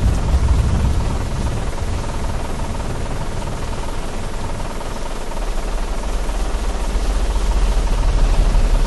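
Loud, steady rush of storm wind and deep rumbling around the TIV 2 tornado intercept vehicle, with a low buzzing drone joining about five seconds in.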